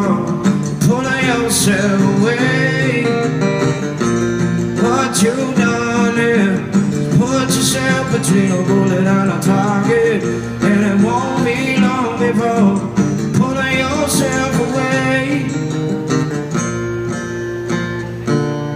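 Acoustic guitar strummed live, with a man's voice singing long, gliding lines over it at several points.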